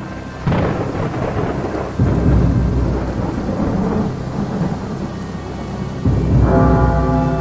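Thunderstorm: a sudden thunderclap about half a second in, then another crash about two seconds in, each rolling on in a long rumble over steady rain. Sustained music chords come in near the end.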